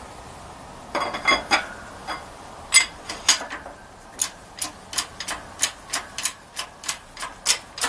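Hand pump lever of a hydraulic shop press being worked, a run of sharp metallic clicks about three a second, as it presses a tight wrist pin out of a piston.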